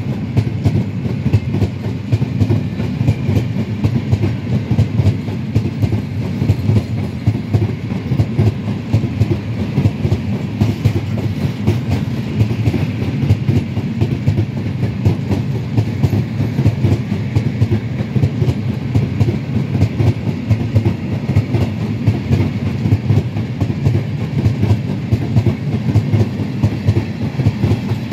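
Freight train of tank wagons rolling past: a steady rumble with a fast, unbroken clatter of steel wheels on the rails.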